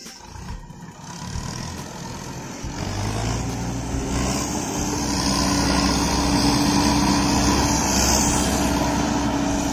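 John Deere W70 combine harvester's diesel engine and machinery running as the combine moves off, a steady hum with a high hiss, growing louder over the first few seconds and easing slightly near the end.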